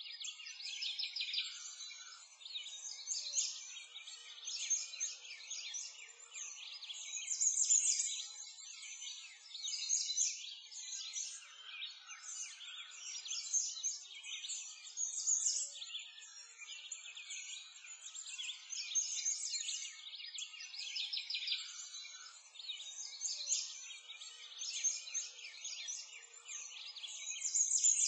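Many small birds chirping and twittering in a dense, continuous high-pitched chorus, swelling louder every few seconds.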